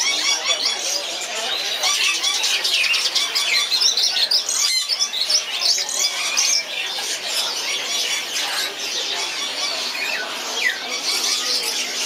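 Many caged birds chirping, twittering and squawking together in a dense, unbroken chorus of overlapping short calls.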